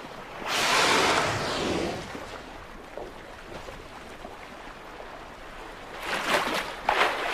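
Open-sea water noise: waves washing, with a loud rushing burst starting about half a second in and lasting over a second, a lower steady wash, and another burst of rushing near the end.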